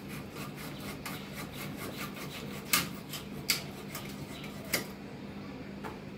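Fish pieces being scraped and cut against the blade of a boti: quick repeated rasping strokes, with three sharper clicks in the middle stretch.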